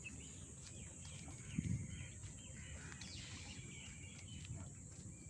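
Faint open-air ambience with scattered bird chirps, and a soft low thump about a second and a half in.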